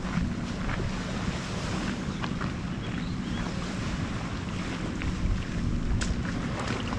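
Wind buffeting the microphone as a steady low rumble, with faint footsteps on a dirt trail.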